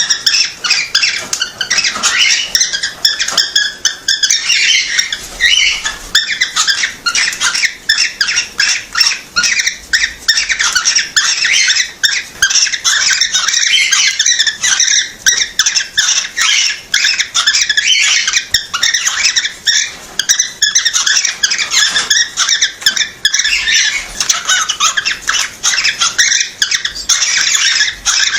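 Cockatiel chirping in a fast, unbroken stream of short, high-pitched chirps and squeaks.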